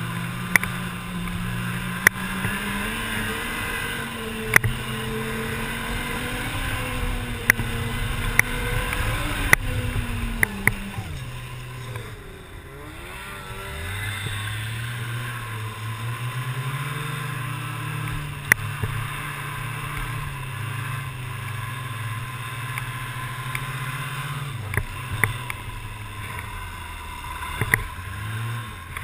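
Arctic Cat snowmobile engine running under way. Its pitch rises over the first several seconds, drops around ten seconds in as the throttle eases, then holds at a steady cruise. The hiss of the track and wind runs under it, with sharp knocks scattered throughout as the sled jolts over the trail.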